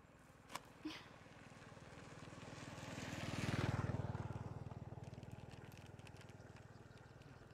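A motor vehicle passing by: its engine swells to a peak a little past halfway through and then fades away. Two short clicks come about half a second and a second in.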